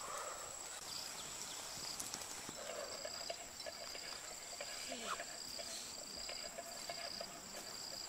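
Faint outdoor ambience of insects: a steady high-pitched whine throughout, joined from about three seconds in by a short high chirp repeating at a steady pace.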